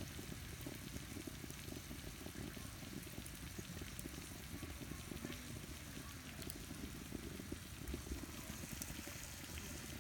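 Green beans and onions sizzling and bubbling steadily in a frying pan over a wood fire, with a few faint clicks.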